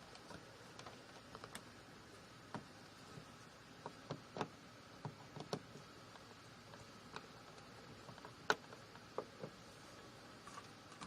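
Small wall-plate screws being fitted and turned into a light-switch plate with a screwdriver: faint, irregular clicks and ticks of metal and plastic, one sharper click about eight and a half seconds in.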